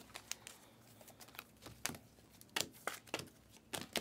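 Trading cards and their foil pack wrappers being handled: soft crinkling with scattered light clicks and slides as cards are flipped through, a few louder ones in the second half.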